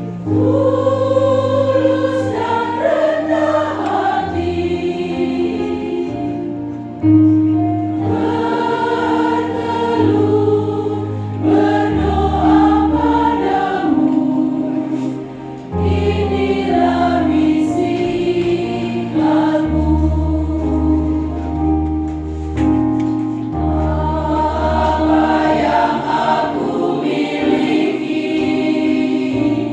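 Church choir singing a slow hymn, with held low notes underneath that change every two or three seconds.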